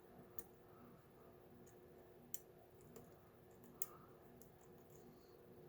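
Lock pick working the pin tumblers of a Gobrico deadbolt cylinder under light tension: faint, sparse clicks of pins springing back down, three of them sharper than the rest.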